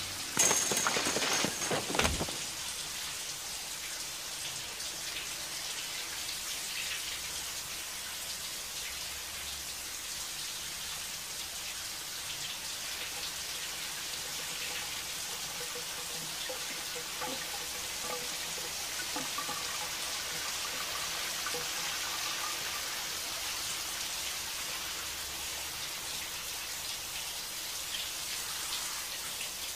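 Shower curtain rings ripping off a metal rod in quick succession, with a high metallic ring, ending in a heavy thud about two seconds in. Then a shower spray runs steadily, hissing onto the tub.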